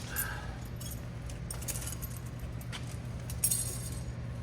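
Steel tire chain links clinking and jingling as the chain is handled and hooked up on a truck's dual tires. A sharper rattle of links comes about three and a half seconds in, over a steady low hum.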